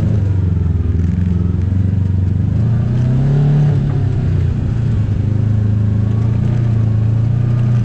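Side-by-side UTV engine running steadily under way, rising briefly in revs about three seconds in before settling back.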